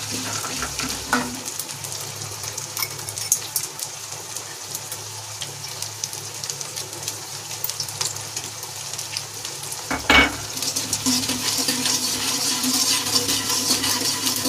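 Edible gum (gond) sizzling and crackling as it fries and puffs up in hot ghee in a metal kadhai, stirred with a wire skimmer that clicks against the pan. A sharp knock about ten seconds in, after which the sizzling grows louder.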